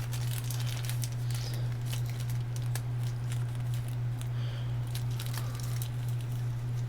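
Small electronic parts being handled and sorted, giving scattered light clicks and crinkling rustles over a steady low hum.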